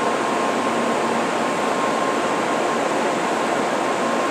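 Steady rushing hiss with a faint high-pitched hum running through it, typical of air-conditioning or machinery noise on a Shinkansen station platform.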